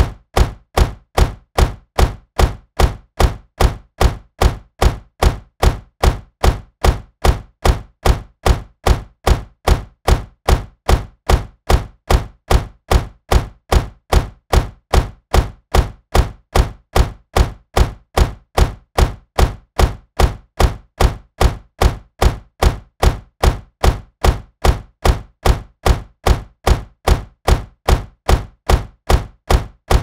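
A car door shutting, the same closing impact repeated evenly about twice a second.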